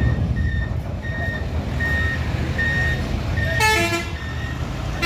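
Diesel truck engine running low under a reversing beeper that gives a short high beep about every 0.7 s. About three and a half seconds in, a multi-tone vehicle horn plays a short tune of stepped pitches, and it starts again right at the end.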